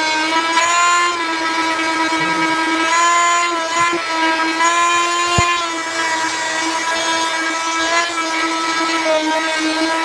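Corded oscillating multi-tool with a triangular sanding pad running steadily while sanding wood, a constant high buzzing whine whose pitch dips slightly now and then as it is pressed into the work.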